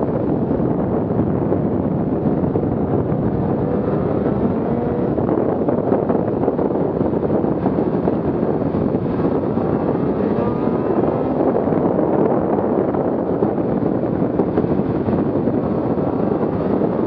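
2017 Arctic Cat M8000 snowmobile's two-stroke twin engine running under way, its pitch drifting up and down a little, mixed with steady wind noise on the microphone.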